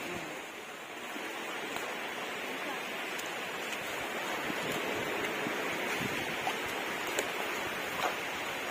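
Sea surf washing onto a sandy beach: a steady rush of breaking waves, with a few faint clicks in the last few seconds.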